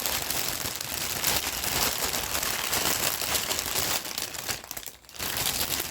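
Crinkling packaging as a craft kit's packets are rummaged through while searching for a part: a dense, continuous crackle that eases briefly about five seconds in.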